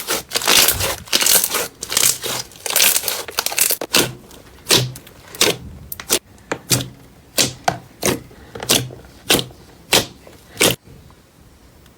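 Crunchy slime being squeezed and pressed by hand, crackling and popping. Dense crackling for the first few seconds gives way to separate crunches about every two-thirds of a second, which stop about eleven seconds in.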